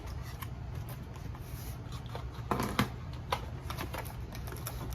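Small handling noises: scattered light clicks and rustles as small items are picked up and moved, with a slightly louder clatter about two and a half seconds in, over a steady low hum.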